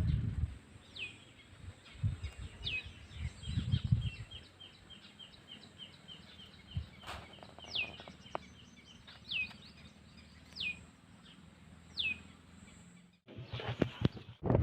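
A bird repeating a short, high call that slides down in pitch, about once a second, with a faster run of ticking notes mixed in for a few seconds in the middle. Low thumps of wind or handling on the microphone come through in the first few seconds.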